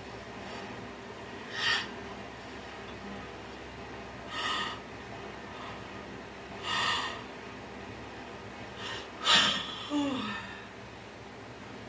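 A person taking four short, sharp breaths, about two to three seconds apart, the last and loudest trailing into a brief falling voiced sound.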